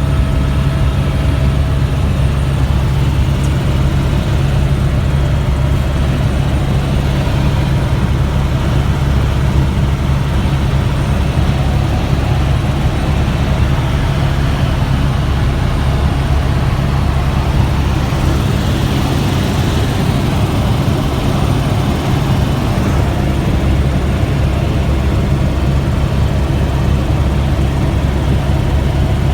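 Helicopter cabin noise: a loud, steady low drone of engine and rotor that holds without change.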